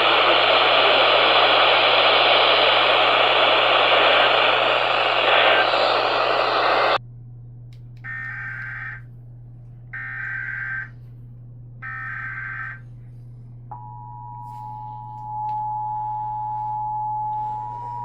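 A loud hiss cuts off about seven seconds in. Then come three short Emergency Alert System SAME header data bursts, each about a second long and a buzzy warble, encoding a severe thunderstorm watch (SVA). Near fourteen seconds the steady EAS two-tone attention signal starts and holds.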